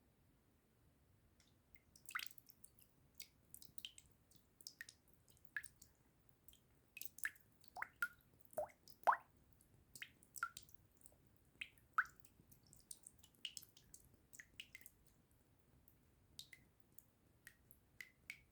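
Water drops dripping at an irregular pace, many short plinks one after another, some with a quick pitch sweep, starting about two seconds in.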